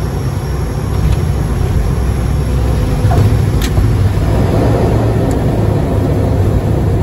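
Cockpit noise of an ATR 72-600 on its landing roll: the turboprop engines and propellers with runway rumble, a steady low drone that grows louder about a second in and again around four seconds in. A single sharp click sounds near the middle.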